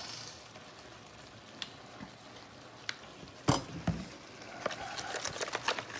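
Kitchen cooking sounds: a faint steady sizzle of food simmering on the stove, a few utensil clicks, two louder knocks about three and a half seconds in, then quick clicking of a utensil stirring in a bowl toward the end.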